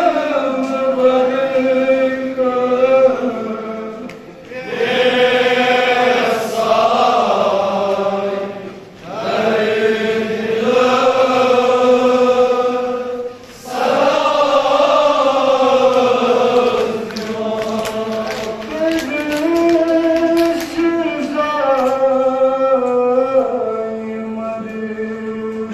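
Kashmiri noha, a Shia lament, sung by a male reciter into a microphone in long held phrases. For several seconds in the middle, the crowd of mourners sings the refrain together as a chorus.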